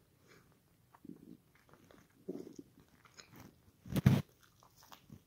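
A person chewing a mouthful of pizza close to the microphone: soft, irregular wet mouth sounds. A brief loud thump about four seconds in.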